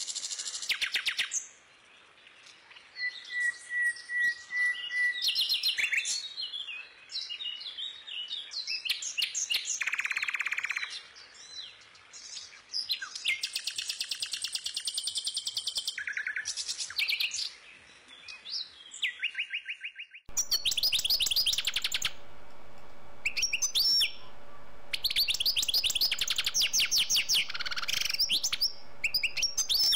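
Small songbirds chirping and trilling in quick, high-pitched calls, one after another. About two-thirds of the way through, a steady low hum comes in beneath the birdsong.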